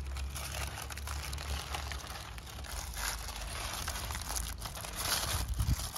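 Aluminium foil crinkling and crackling as hands pull it open and peel it back, with a steady low rumble underneath.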